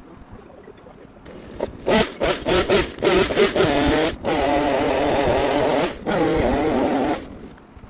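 Two-stroke chainsaw engine revving: a few short throttle blips, then three long full-throttle runs with brief drops between, before it cuts back to quiet.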